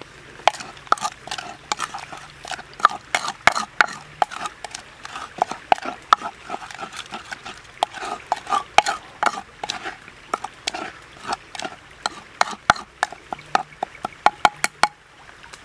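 Wooden pestle pounding and mashing chopped chilies, garlic and salt in a wooden mortar: quick, irregular wet knocks and squelches, several a second, stopping near the end.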